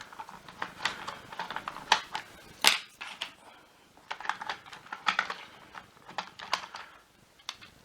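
Irregular light clicks and taps of plastic vacuum power-nozzle parts being handled and worked loose by hand, with one sharper knock about three seconds in.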